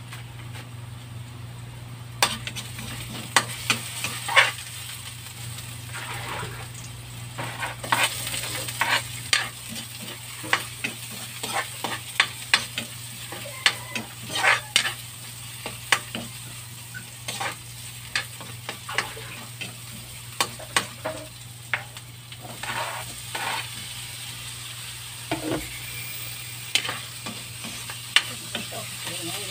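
Garlic and onion frying in oil in a wok, with a metal spatula scraping and clinking against the pan in quick, irregular strokes that begin about two seconds in. Pieces of longganisa sausage go into the pan near the end.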